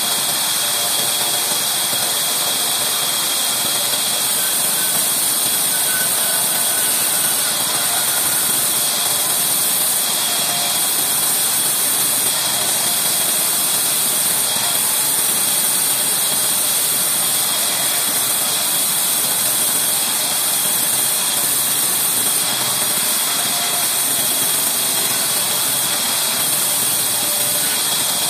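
Large vertical band saw running steadily while ripping an old reclaimed wooden beam lengthwise, a constant whining hiss with no let-up.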